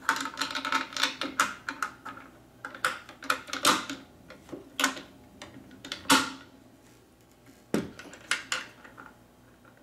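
Metal clicking and clinking as a bolt is fitted and turned by hand into an elliptical trainer's metal rear stabilizer: a quick flurry of clicks at first, then a few single clicks.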